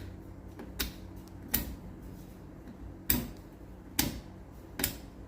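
Rotary circuit selector switch on a Jackson 103 tube tester clicking from position to position: six sharp clicks, irregularly about a second apart, over a faint steady low hum.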